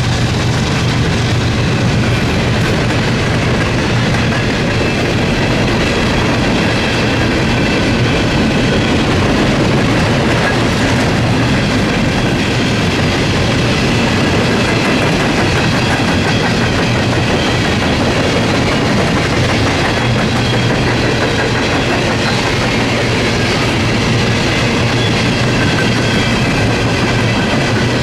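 Norfolk Southern freight train rolling past, a loud, steady noise of railcar wheels on the rails.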